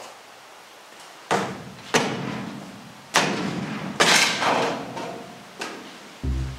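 Five hard knocks on the wooden 4x4 support post under a freshly built 2x6 garage door header as the post is knocked loose, each blow ringing briefly after it. Music starts near the end.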